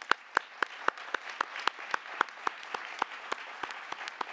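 Audience applauding, with one person clapping close to the microphone: sharp, steady claps about four a second over the crowd's even patter.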